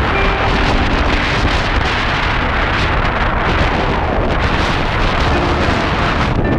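Wind buffeting the camera's microphone on the deck of a boat under way, a loud steady rushing with deep rumbling gusts, over water rushing past the hull.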